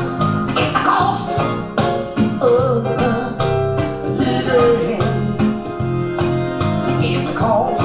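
A song with singing and plucked guitar, played back through Triangle Esprit EZ floorstanding hi-fi speakers and picked up by a microphone in front of the speakers.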